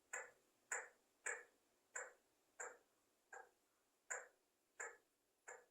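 Pet parrot making a run of nine short, sharp clicking calls, evenly spaced about two-thirds of a second apart.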